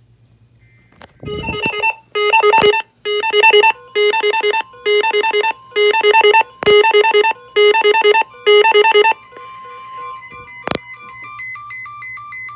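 Uniden Bearcat WX500 weather radio sounding its tornado-watch alert tone: about eight loud, fluttering electronic beep bursts roughly once a second. A steady tone joins about four seconds in and carries on more quietly after the bursts stop. Two sharp clicks are heard.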